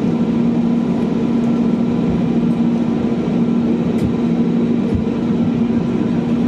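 Aircraft engines running with a loud, steady drone: a constant low tone and fainter high whines that do not change in pitch.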